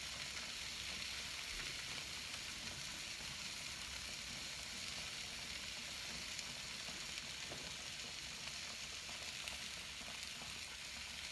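Sliced Polish kielbasa sizzling steadily in a hot cast iron skillet as it sears.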